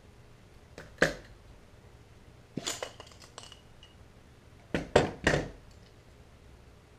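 Clicks and knocks from a Bostitch brad nailer being taken apart by hand: a sharp click about a second in and a short cluster of clicks near the middle as its piston and driver rod are drawn out. Three louder knocks come about five seconds in as the tool is set down on a wooden workbench.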